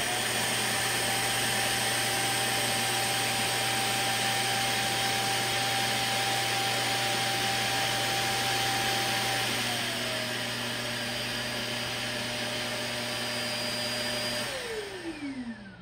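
Shark Detect Pro auto-empty dock's suction motor running, pulling dirt out of the vacuum's bin: rushing air over a steady whine. The whine steps down slightly about ten seconds in. Near the end the motor winds down with a falling whine and stops.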